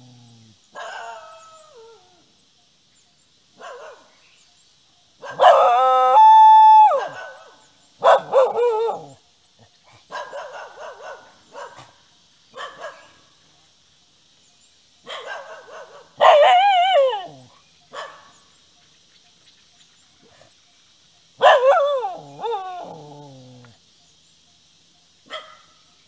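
Dogs howling in long, wavering calls, repeated in about six spells with short pauses between. The loudest howl comes about six seconds in.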